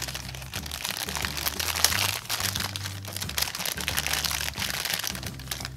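Clear plastic wrapping crinkling and crackling continuously as hands pull it open and handle the plastic toy parts inside, with many small sharp crackles.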